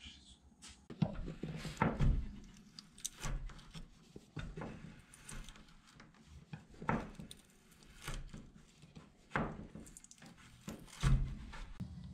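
Whittling knife cutting into a wooden blank in short, sharp, irregular strokes, roughly one a second, some with a low thump, the strongest near the end.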